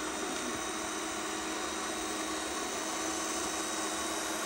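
Radio-controlled model excavator's electric drive running steadily while its arm moves: an even mechanical whir with a constant low hum.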